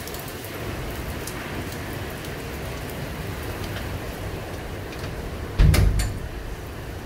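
Steady rain on a surface, with a few faint clicks and one loud short knock about five and a half seconds in.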